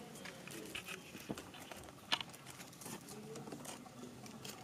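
Scattered light clicks, taps and rustles of hands handling paper strips and thread-wound atom bomb crackers in a plastic basin, with one sharper tap about two seconds in.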